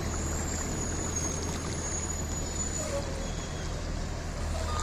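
Floodwater rushing steadily over a submerged low bridge and spilling over its edge, a strong current about 3 inches deep.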